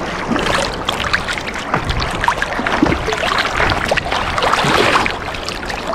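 Sea water splashing and sloshing as a swimmer strokes and kicks through shallow water, heard from a camera held right at the surface, with a continuous run of small irregular splashes.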